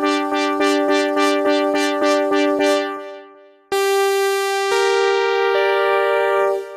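Sequential Pro 3 analog synthesizer played in paraphonic mode: chords of plucky, bright repeated notes at about four a second that fade away about three seconds in, then, after a brief gap, a sustained chord with a sweeping bright filter whose notes change twice.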